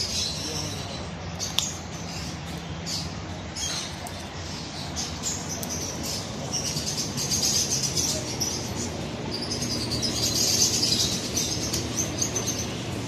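A parrot chirping and squeaking in high-pitched calls, growing louder in two longer stretches past the middle, over a steady low hum.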